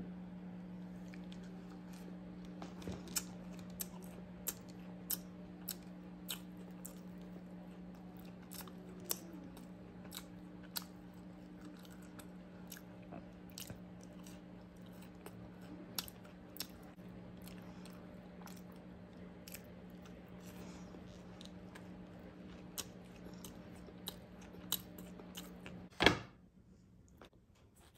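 Close-miked chewing of flaky baked croissant pastry, with sharp little crunches every second or so over a steady low hum. A loud knock comes near the end, after which the hum stops.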